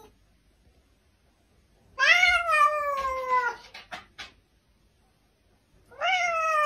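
Domestic cat meowing twice: two long, drawn-out meows that rise briefly and then slide down in pitch, the first about two seconds in and the second near the end, with a couple of light taps between them.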